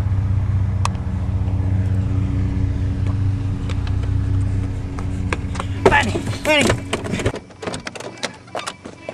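A steady low engine-like hum that cuts off abruptly about seven seconds in.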